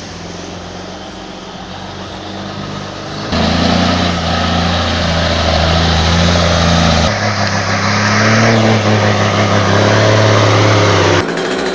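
Truck engine running steadily, its pitch and loudness jumping abruptly about three seconds in, again about seven seconds in and once more near the end.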